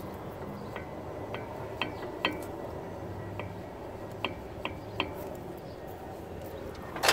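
A series of light clicks, about eight scattered over several seconds, over a faint low hum.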